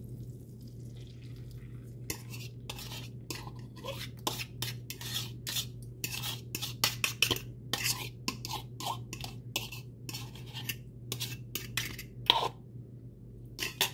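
Utensil stirring the scrambled-egg mixture of eggs, milk and cheese, clicking and scraping irregularly against the dish, over a steady low hum.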